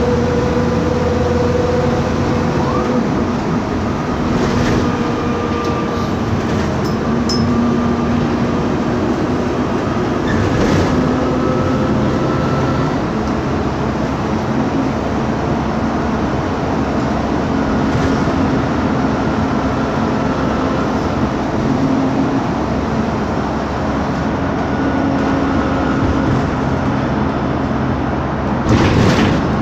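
Cabin noise of a MAN Lion's Classic city bus on the move: its CNG MAN E2876 LUH03 straight-six engine and ZF Ecomat 6HP504C automatic gearbox running under way, with whining tones that shift to new pitches several times, plus road rumble and a few knocks. A brief louder rush of noise comes near the end.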